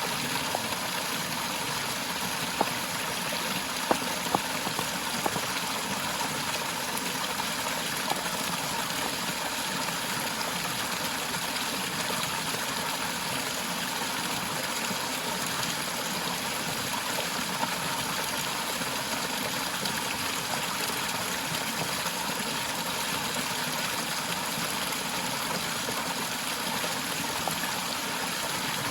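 Waterfall in a forest: water falling and rushing steadily, with a few brief sharp ticks in the first few seconds.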